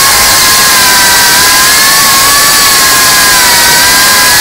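FPV drone's brushless motors and propellers whining at a high pitch over a loud rushing hiss, the pitch wavering a little as the throttle changes.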